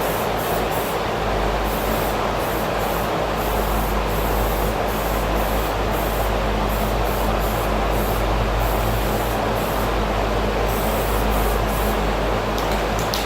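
Paint being sprayed: a steady hiss that runs on without a break, with a low steady hum underneath.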